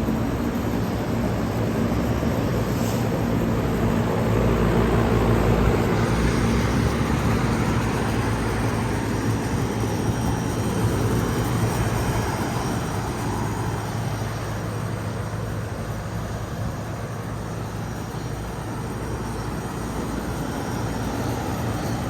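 Two Lennox air conditioner units running in cooling mode: a steady fan rush over a low compressor hum.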